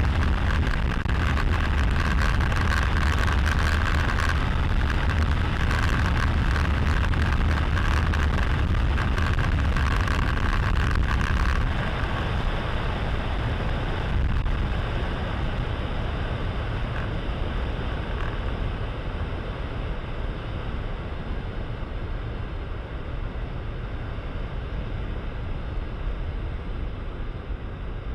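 Cessna 140 light plane in flight: its air-cooled flat-four engine and propeller droning steadily, with wind rushing over a camera mounted outside under the wing. About twelve seconds in the sound drops suddenly, losing much of its hiss, and then runs on softer, slowly fading.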